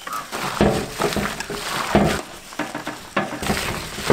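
Plastic-gloved hands squishing and turning chicken shawarma filling coated in mayonnaise in a steel bowl: wet squelching in irregular strokes.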